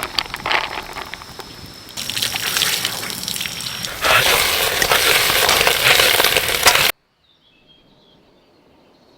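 Food sizzling and spitting in a hot iron wok, a loud crackly hiss heard in three short spliced shots that cuts off abruptly about seven seconds in. After the cut there is only a faint background with a few short high chirps.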